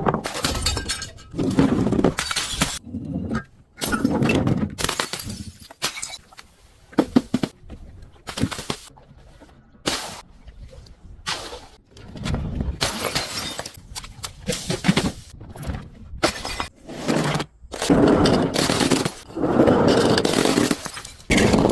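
Glass bottles being broken and crushed: repeated shattering and crunching of glass in a series of bursts, with denser, longer crunching stretches in the second half.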